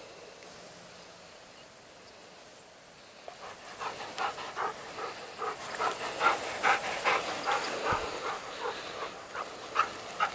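14-year-old Golden Retriever panting close by, starting about three seconds in, in quick breaths of about four a second.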